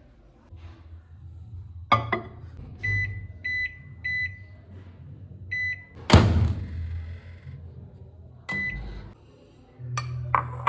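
Microwave oven being set and run: several short keypad beeps, sharp clunks of the door and buttons, and the oven's low steady hum as it heats butter and chocolate to melt them.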